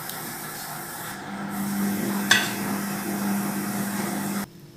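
Warm sugar syrup poured from a metal ladle over freshly baked pastries in a glass dish: a steady noise of liquid pouring and soaking in, with a single click about two seconds in. The sound stops abruptly near the end.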